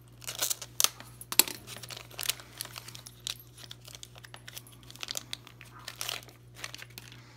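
Clear plastic packaging bag crinkling and crackling in irregular bursts as it is handled and picked open, stopping near the end.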